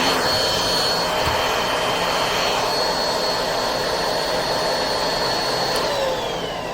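Cordless stick vacuum's motor running with a steady whine, then switched off about six seconds in, its pitch sliding down as the motor spins down.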